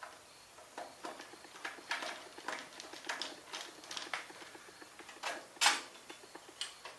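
Small metal engine parts (a bolt, a heat shield and a fuel line clamp) clinking and rattling as they are lifted off and handled, with one sharper clank about five and a half seconds in.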